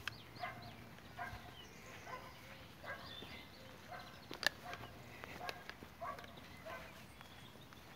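Light footsteps on wet grass, about two a second, from a person walking greyhounds on a lead, with a few sharp clicks, the loudest about four and a half seconds in.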